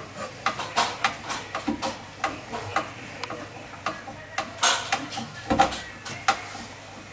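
Hand screwdriver driving a screw into the underside of a timber frame: a string of irregular clicks and ticks as the tool is turned.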